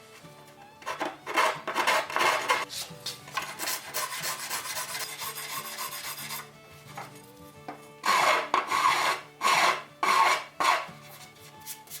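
Hand rasp filing wood in rough back-and-forth strokes: a few short strokes, then a longer continuous stretch, then four strong strokes near the end. The rasp is shaping a wooden joint for a buggy frame. Soft background music plays underneath.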